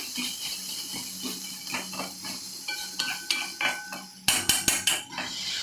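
Spatula stirring and turning freshly added spinach leaves in a metal pan, with scraping and light metallic clinks, then a quick run of sharp knocks about four seconds in.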